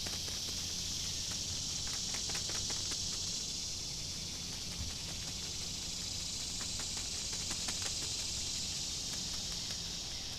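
A steady, shrill chorus of insects, with rapid clicking running through it.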